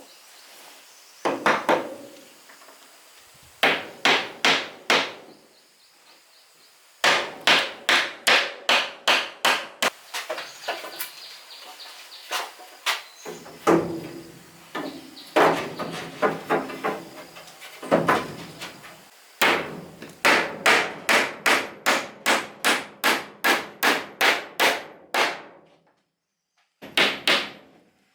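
Hammer striking wood in quick runs of about three to four blows a second, broken by short pauses.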